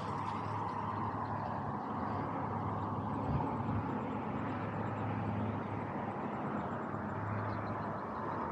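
Radio-controlled Pro Boat Sonicwake deep-V boat's brushless motor running steadily out on the water, heard from a distance.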